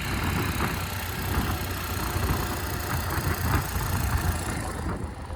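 Bajaj Pulsar NS125 single-cylinder engine idling, heard close up, with a faint irregular ticking over the engine sound. The owner calls the ticking 'kit kit kit' and takes it for tappet noise; it was later put down to a faulty spark plug.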